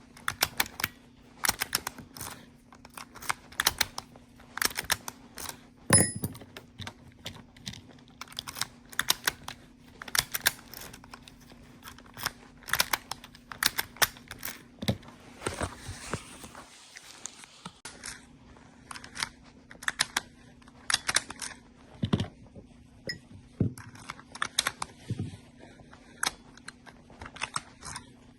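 Quick, irregular clicks and taps of small metal parts as the Acura/Honda ignition lock cylinder and its housing are handled and worked on the bench, over a steady low hum. A brief hiss comes about halfway through.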